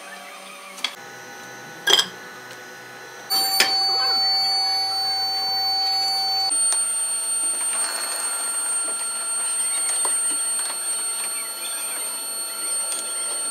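Steady mechanical whine of a furnace blower forcing air into a coal-fired melting furnace, with a few sharp clicks in the first seconds. The tone changes abruptly and gets louder about three seconds in, and changes again a few seconds later.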